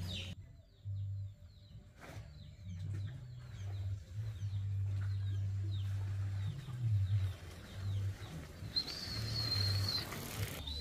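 Birds chirping and calling, over a low rumble. A steady high-pitched buzz comes in near the end.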